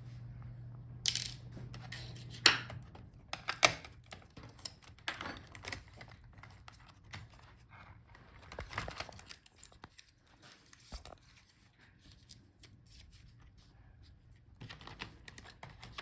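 Small screws being taken out of a laptop's touchpad bracket and the parts handled: scattered sharp clicks, taps and light scrapes of a screwdriver and fingers on metal and plastic, the sharpest clicks in the first four seconds.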